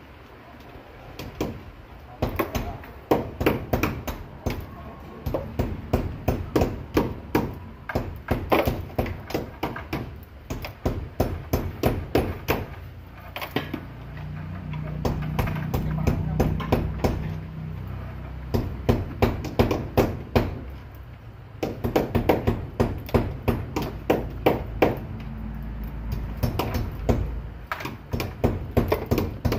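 Hammer blows in quick runs of several strikes a second, broken by short pauses, as something is nailed at a wooden post.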